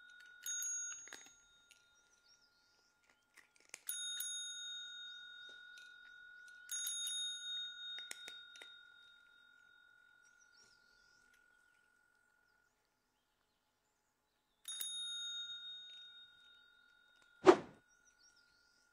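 Chrome service (desk) bell tapped by cats' paws, dinging about four times, each ring dying away slowly. A single loud thump near the end.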